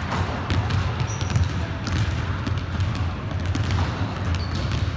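Irregular thuds on a hardwood gym floor from running sneakers and basketballs, over a steady low rumble.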